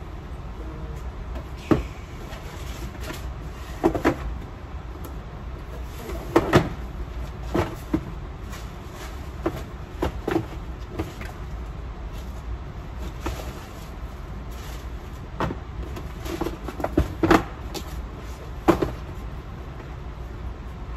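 Cardboard shoe boxes being handled on shelves: pulled out, flipped upside down and set back, giving about a dozen irregular knocks and scrapes over a steady low hum.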